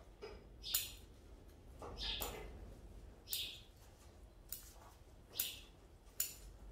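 Bonsai scissors cutting crepe myrtle shoots: a series of short, sharp snips, roughly one a second.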